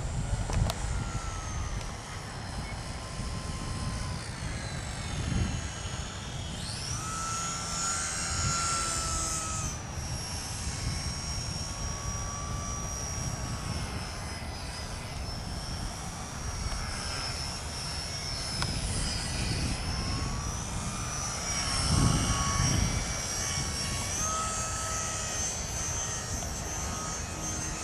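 Parkzone Typhoon 2 3D radio-controlled airplane's electric motor and propeller whining in flight overhead, the high whine rising and falling in pitch. A low rumble runs underneath and is loudest about three-quarters of the way in.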